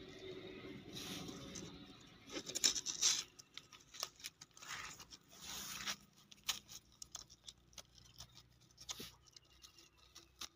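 Dried cow-dung cakes being broken up by hand, with crumbling, scraping and small pieces dropping into a plastic bucket. Several louder stretches of crumbling come in the first six seconds, then scattered light clicks and ticks.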